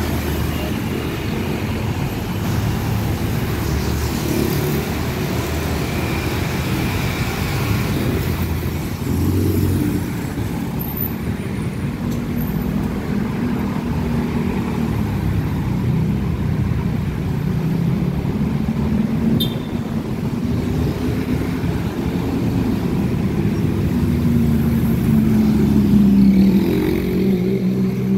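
Continuous road traffic: cars, pickup trucks and motor scooters driving past, a steady mix of engine hum and tyre noise. It is loudest about 26 seconds in, as a passing engine's hum rises.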